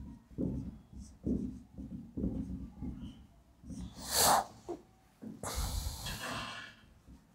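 Marker writing on a whiteboard in short strokes, with a loud, sharp sniff through the nose about four seconds in and a longer breathy hiss after it.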